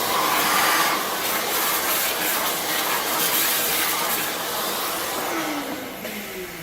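A machine-shop motor running with a loud rushing hiss, like a vacuum, then winding down near the end.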